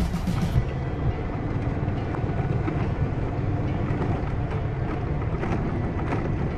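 Steady rumble of a vehicle driving slowly on a rough dirt road: engine and tyre noise, with a few short knocks from the bumpy surface in the second half.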